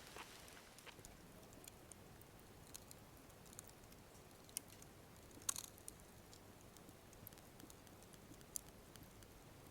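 Faint crackling of an open wood fire: a low steady hiss with scattered sharp pops, the loudest about five and a half seconds in.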